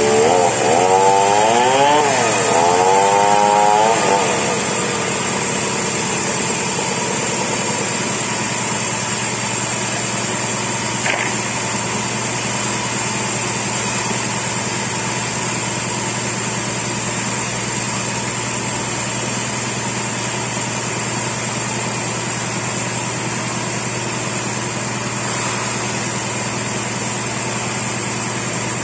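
Chainsaw revving up and down several times over the first few seconds, then running steadily at an even pitch as it cuts into a large merbau log.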